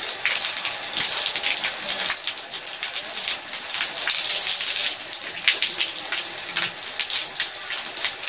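A steady stream of water from a garden hose spattering onto concrete.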